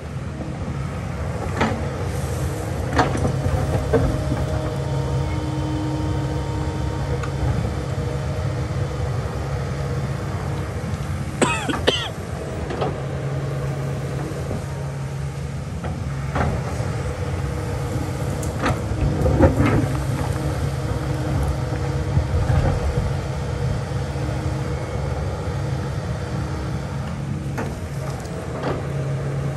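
Kobelco excavator's diesel engine running steadily under work, with scattered sharp knocks and clanks, a cluster of them about twelve seconds in.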